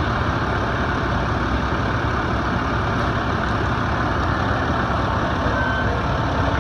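Ladder fire truck's diesel engine idling steadily.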